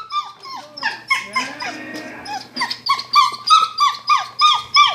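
Dog whining in a rapid series of short, high-pitched cries that each fall in pitch, about three a second, with a brief break in the middle.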